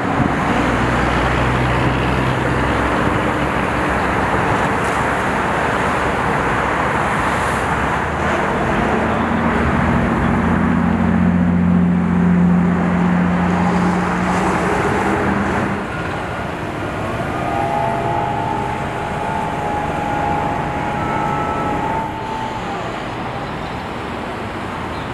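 Road traffic passing close by: a steady rush of vehicle noise, with a vehicle's engine drone rising out of it in the middle and a higher steady whine for a few seconds later on.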